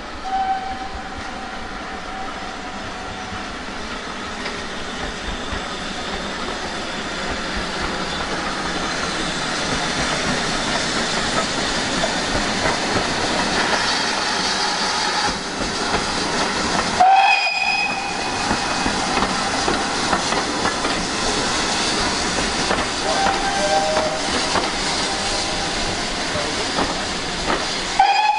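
Steam tank locomotive hauling a train of coaches past, its exhaust and its wheels clattering on the rails, growing louder as it approaches. A few brief clear tones sound near the start, partway through and at the end.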